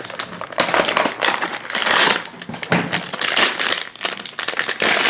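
Foil blind bag crinkling as it is handled and opened by hand, a dense run of crackling that starts about half a second in and dips briefly a couple of times.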